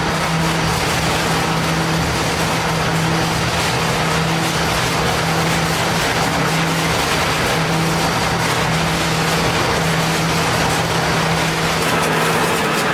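Tire-shredding line running: an industrial tire shredder and its feed conveyor give a steady mechanical drone with a constant low hum.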